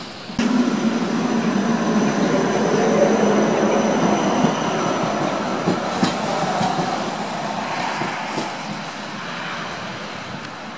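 Electric tram running along the line, a steady rumble with a thin high whine. It starts abruptly about half a second in, has a few sharp clicks from the wheels on the rails partway through, and fades over the last few seconds.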